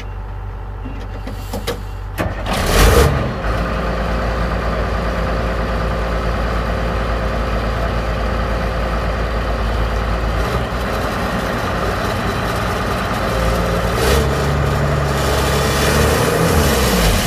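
Wheeled log skidder's diesel engine running hard as the machine works stuck in deep mud. There is a short loud surge about three seconds in, and the engine grows louder again near the end.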